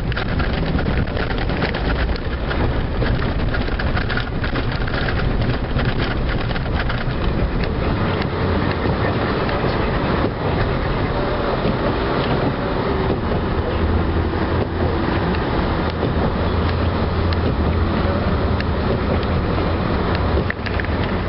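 Plow truck with a Boss snowplow at work: the engine runs steadily with a low drone, under rumbling and a stream of clattering knocks as it plows snow.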